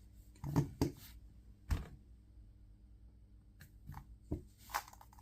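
Plastic clicks of a 2x2 speed cube being turned by hand: a few separate, sharp turns, a heavier knock a little under two seconds in, then a pause before more clicks near the end.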